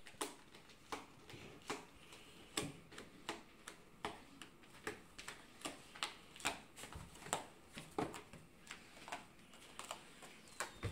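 Cats pawing and clawing at a cardboard box: irregular sharp taps and scratches, one to three a second.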